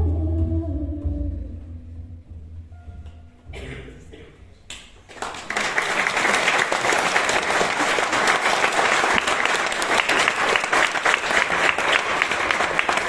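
Recorded music with a strong bass line fades out over the first few seconds. About five seconds in, an audience starts applauding, and the clapping stays dense and even.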